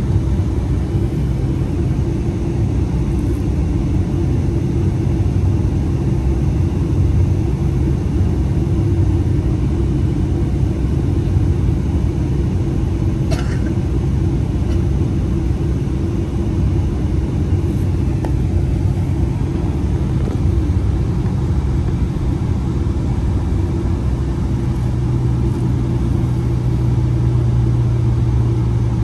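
Steady low rumble of a Boeing 777-300ER's GE90 engines and airframe heard from inside the cabin, with one short click about halfway through.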